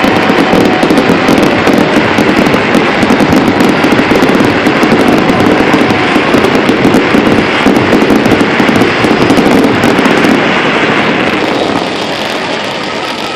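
Fireworks display: a dense, continuous barrage of bangs and crackling that eases off a little near the end.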